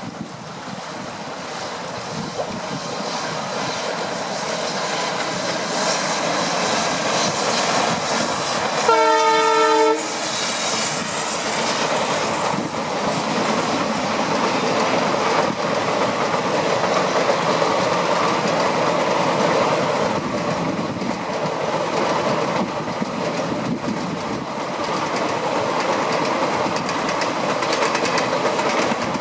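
Diesel-hauled passenger train passing: the rumble and wheel clatter build up and then hold steady as the coaches roll by. The locomotive's horn sounds once, for about a second, around nine seconds in.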